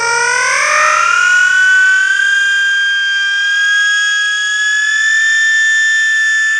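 Slowed-down baby's voice stretched into one long, loud, high wail. It rises in pitch over the first second and then holds steady.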